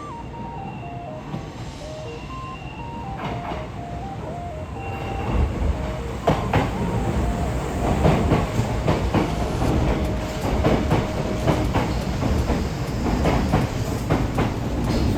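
Kintetsu electric train running past, its wheels clacking over rail joints. The rumble swells and turns loud about five seconds in, and stays loud with a rapid run of clacks.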